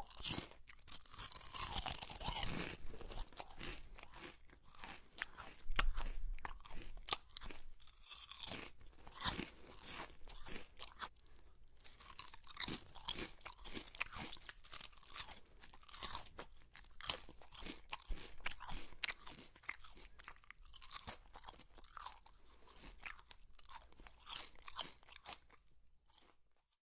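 Potato chips being chewed close to the microphone: a long, irregular run of sharp, crisp crunches that stops near the end.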